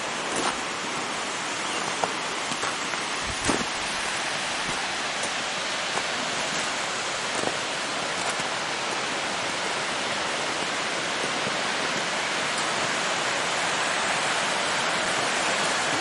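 Steady rush of a waterfall about 38 metres high, growing a little louder towards the end, with a few faint knocks in the first few seconds.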